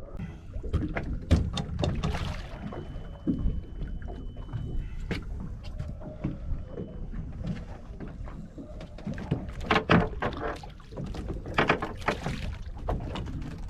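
Small fishing boat on open water, with a steady low rumble of water against the hull and repeated knocks and clatters of gear on the deck. Louder rustling, splashy bursts come twice near the end.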